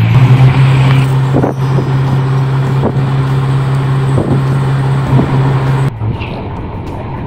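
Engine of a songthaew pickup-truck taxi running steadily under way, heard from aboard, with a steady low drone and a few sharp knocks and rattles from the ride. About six seconds in the drone drops away to a quieter rumble.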